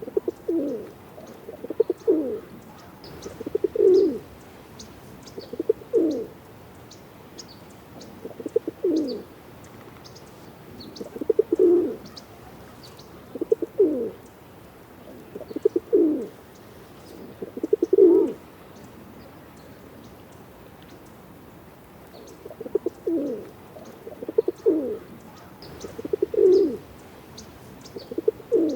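Pigeon cooing: a run of low coos, one roughly every two seconds, with a pause of a few seconds a little past the middle.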